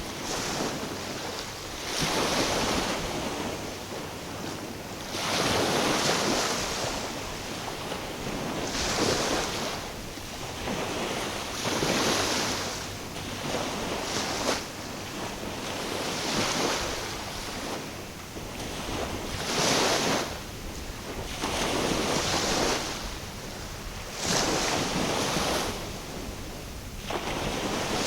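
Small waves washing against the shore, a noisy wash that swells and ebbs every two to three seconds.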